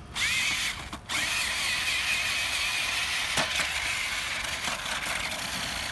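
Battery-powered Monster Jam Megalodon RC toy monster truck's electric motor and gears whining as it drives through snow. It starts suddenly, cuts out briefly about a second in, then runs on steadily with a wavering high whine.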